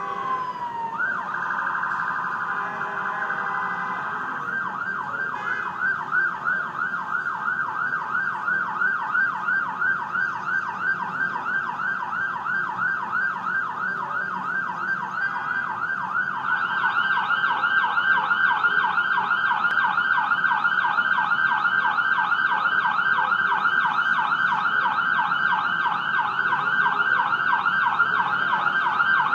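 Ambulance siren: one falling wail at the start, then a fast repeating yelp that carries on and gets louder a little past halfway.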